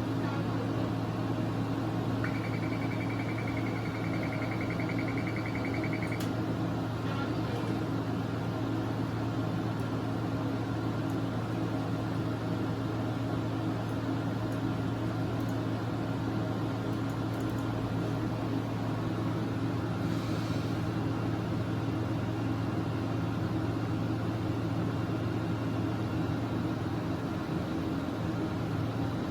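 CT scanner running with a steady machine hum during a chest scan. A steady high electronic tone sounds for about four seconds, starting a couple of seconds in, and there is a brief hiss about twenty seconds in.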